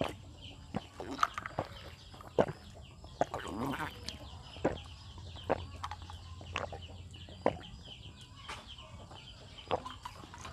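A person drinking from a glass and swallowing in close-miked gulps, about a dozen sharp gulps at roughly one a second.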